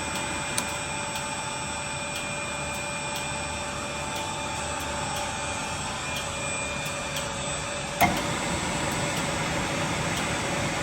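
Electric motor running steadily, a constant hum with a few fixed tones, with one sharp knock about eight seconds in.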